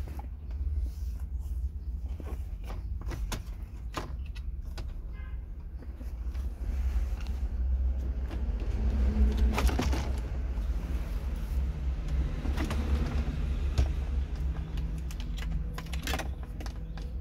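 Plastic dashboard trim of an older Honda CR-V being handled and pried loose by hand: scattered clicks, knocks and rattles, busiest about halfway through, over a steady low rumble.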